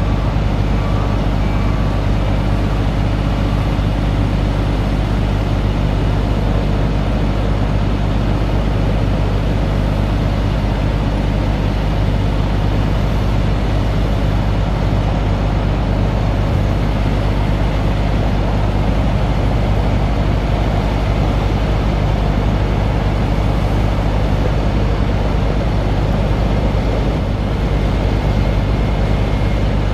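Crane truck's Caterpillar 3126B diesel engine running at a steady, unchanging speed, driving the hydraulics as the National telescopic crane boom swings and raises.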